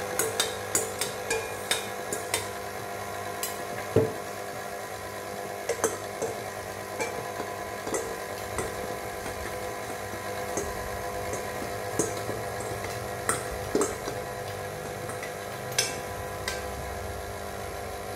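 Stand mixer motor running steadily as it beats cake batter, with repeated sharp metal clinks of a stainless steel bowl and spoon knocking against the mixer bowl while the liquid is poured and scraped in.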